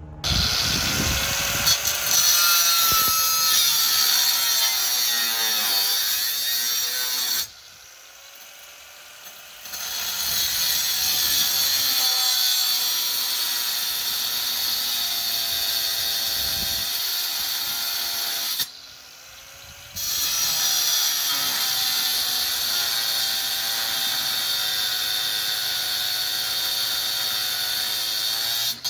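Electric angle grinder grinding metal, running in three long bursts with the motor's whine sagging and recovering under load, and stopping briefly about seven seconds in and again near nineteen seconds. It is grinding the edges down to free the bolts of a mower deck spindle.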